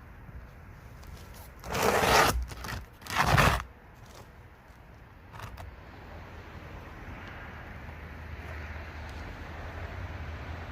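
Two short, loud scrapes about a second apart, followed by a fainter one, over a steady low rumble.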